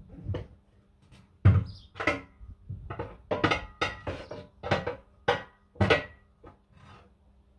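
A run of about a dozen sharp metallic knocks, roughly two a second, loudest about a second and a half in: tools striking the steel rim and bead as a large tractor rear tyre is forced back onto its wheel.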